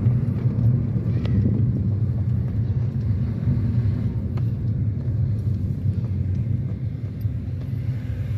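Toyota Vios being driven, heard from inside the cabin: a steady low engine and road rumble. It runs smoothly with no jerking, its misfire cured by new spark plugs.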